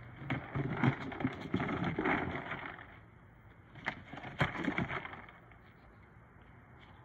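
A cardboard box holding dry kibble scraping and knocking over concrete paving as a dog noses and shoves it. There are two spells of it: one of about two seconds, and a shorter one starting about four seconds in.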